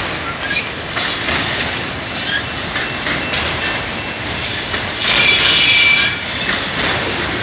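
Freight train of autorack car-hauler cars rolling past, a steady rumble of wheels on rail with a few sharp clacks. About five seconds in, a louder high metallic wheel squeal lasts about a second.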